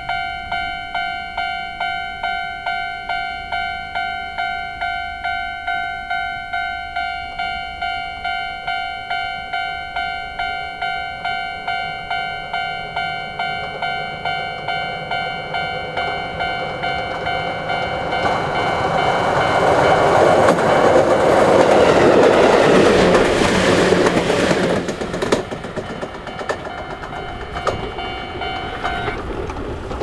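Japanese level-crossing alarm of the old standard type, dinging quickly and evenly. About two thirds of the way in, a Chichibu Railway 6000-series train passes over the crossing, its rumble swelling and fading for several seconds, and the alarm stops near the end.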